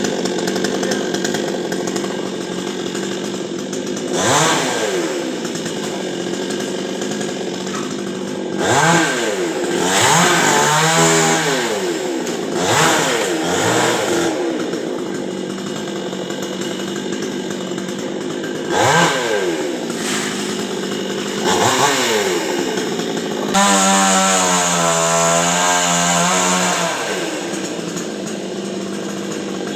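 Two-stroke chainsaw engine idling, blipped up to speed and back several times, then held at high revs for about three seconds with a wavering pitch, as when the chain is under cutting load in a coconut trunk.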